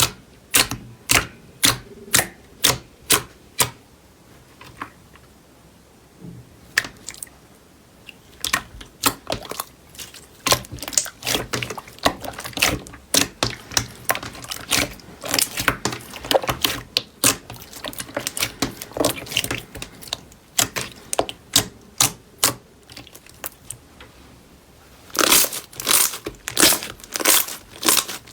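Crunchy slime being pressed and squeezed by hand, giving sharp crackling snaps and pops. First evenly spaced single snaps about two a second, then a sparser stretch, then dense crackling with a short lull and a thick burst near the end.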